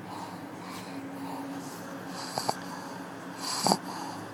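Pug snoring in its sleep: two short snores a little over a second apart in the second half, each rising quickly and cutting off. They are the noisy breathing typical of a pug's short, flat-nosed airway.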